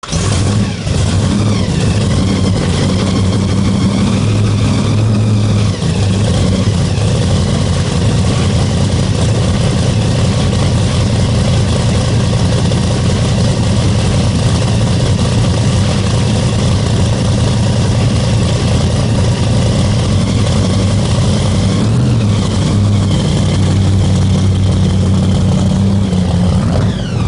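1969 Chevrolet Camaro's engine running loudly and steadily, with slight changes in pitch near the start and near the end.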